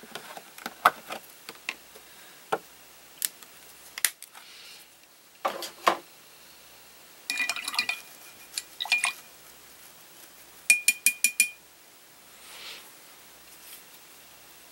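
Plastic lids on a paint palette's wells being popped open and handled: scattered clicks and taps, with two quick runs of rattling clicks, one a little past the middle and another about three seconds later.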